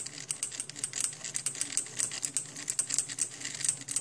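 Homemade mini SCARA pen plotter writing: rapid, irregular clicking and ticking from its half-stepping stepper motors and the pen working on the paper, with the solenoid pen lifter clicking as it raises and drops the pen between strokes.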